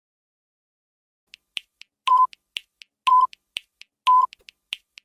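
Countdown-timer sound effect: quick clock-like ticks, about four a second, with a short beep on each second. It starts about a second in.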